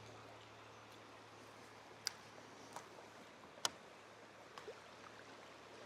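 Faint steady rush of river water, with a few light, sharp clicks, the clearest about two seconds in and again a second and a half later.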